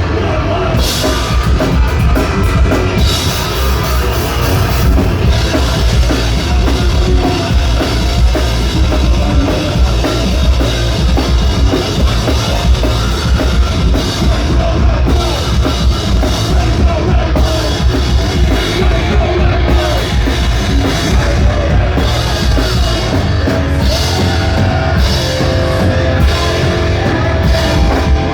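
Heavy metal band playing live and loud, the drum kit driving steadily under the full band.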